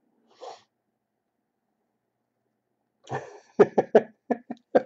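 Silence for over two seconds, then a man's voice in a quick run of about six short bursts in the last two seconds.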